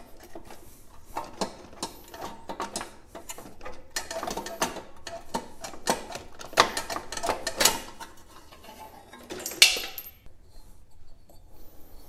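Engine shroud with its wraparound fuel tank and recoil starter being worked up and off a lawn mower engine: irregular scraping, rattling and knocking, with the loudest sharp knock about ten seconds in.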